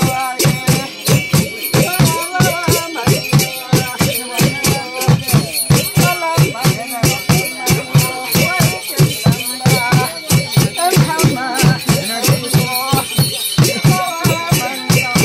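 Large barrel-shaped dhol drum beaten with two sticks in a steady, even rhythm of about three beats a second, under a continuous jingling rattle and a wavering chanted voice, the music of a Kirati mundhum ritual.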